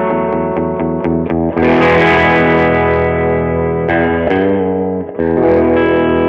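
Electric guitar played through an amplifier with some overdrive: a run of picked notes, then a chord struck about a second and a half in and left ringing. More chords are struck near the end.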